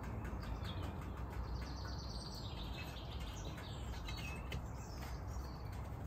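Steady low rumble of a gas-fired home foundry furnace burning, with small birds chirping over it.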